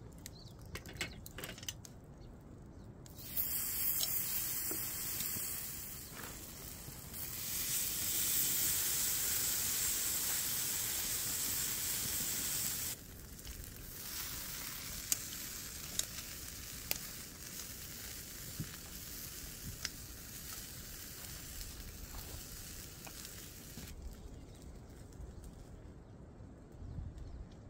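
Rack of ribs sizzling on a grill grate over campfire coals, with scattered sharp crackles. The sizzle starts a few seconds in, is loudest in the middle, drops suddenly about halfway through, and stops a few seconds before the end.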